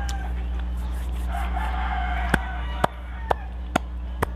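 A rooster crowing: one held, steady call that starts about a second in and lasts about a second. In the second half it is followed by five sharp clicks, about two a second.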